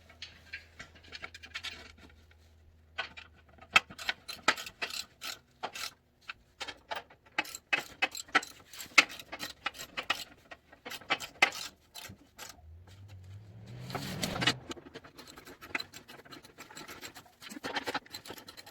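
Metal clicks and clinks of hand tools and screws as a skid plate is fastened under a Hummer H3, coming in irregular runs, with a brief rising hum about two-thirds of the way through.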